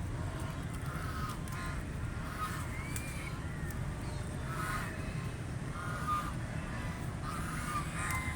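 Ducks quacking, a run of short calls repeating every second or so, over a steady low rumble.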